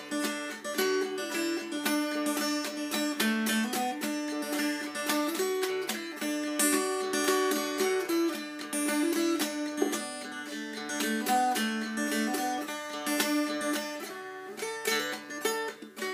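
Mountain dulcimer played clawhammer (frailing) style, chords and melody together: the melody string is picked and pulled up while the bass string is slapped in a steady, rhythmic down-stroke pattern.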